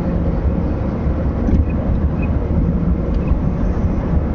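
Steady low rumble of tyre, road and engine noise heard inside a car's cabin while cruising at about 110 km/h.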